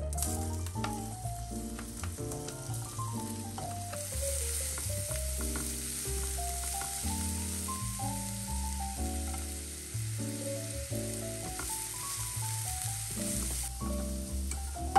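Ground shallot and garlic paste sizzling in hot oil in a frying pan, stirred now and then with a spatula. A melodic music track plays underneath. The sizzle stops abruptly shortly before the end.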